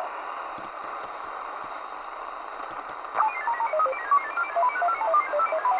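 Midland Alan 8001 CB radio receiving on the freeband: the hiss of an open channel with a few clicks, then about three seconds in a fast run of short electronic beeps hopping in pitch, several a second, sent over the air by a transmitting station.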